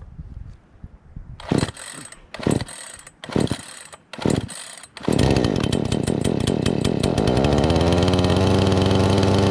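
Craftsman S205 46cc two-stroke chainsaw being pull-started cold on choke: four pulls of the starter cord about a second apart, then the engine catches about five seconds in and keeps running, settling into a steady idle.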